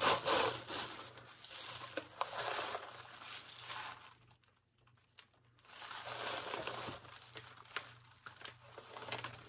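Packaging being crinkled and torn open by hand, with scattered small clicks of handling. It goes quiet for about a second and a half around the middle, then the crinkling resumes.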